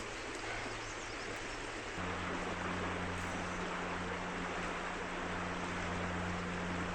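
River water running, a steady rushing noise; about two seconds in a steady low hum joins it.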